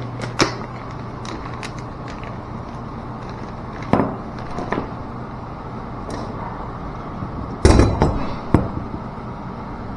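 Hand handling of small valve parts and tools: scattered light clicks and knocks, with a louder cluster of clatter and bumps about eight seconds in.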